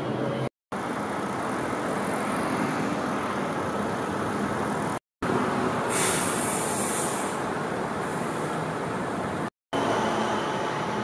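Street traffic: a steady wash of passing cars, with a burst of high hiss about six seconds in. The sound drops out to silence three times for a moment at the cuts between shots.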